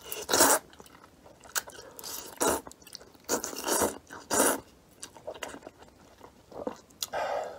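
Noodles being slurped and chewed at close range: a string of short slurps with chewing in the gaps.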